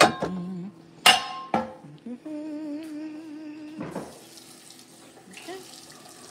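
Cookware clanking against stacked glass bowls as a pot is pulled out of a crowded kitchen cabinet: a sharp ringing clank at the start, then two more about a second in.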